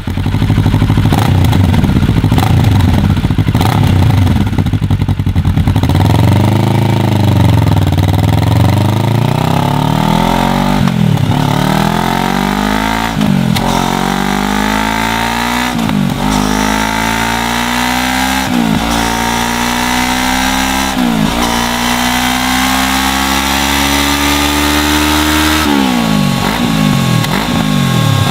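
Kawasaki Versys 650 parallel-twin engine through a LeoVince LV One Evo slip-on exhaust. It runs briefly, revs once, then accelerates through the gears, climbing in pitch and dropping sharply at each of about five upshifts. Near the end it falls off in shorter dips.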